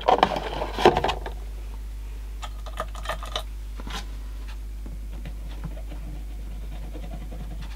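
Handling noise from a plastic cassette-deck tape mechanism being turned over in the hands: a sharper knock about a second in, then scattered light clicks and taps, over a steady low hum.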